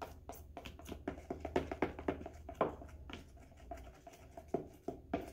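Metal spoon stirring a little white glue and baby oil in a clear plastic bowl, making quick, irregular scraping clicks against the bowl.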